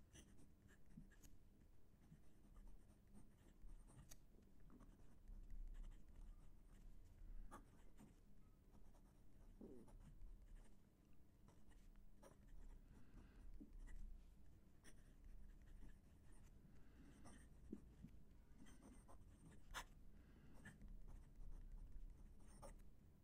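Moonman C3 fountain pen's fine steel nib writing on Oxford Optik paper, heard close up: faint, irregular scratching of pen strokes that sounds like writing with a pencil.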